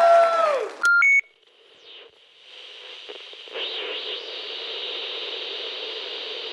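A held musical note dies away, then a quick electronic beep rises in two steps about a second in. After a short silence, a steady TV-style static hiss fades up.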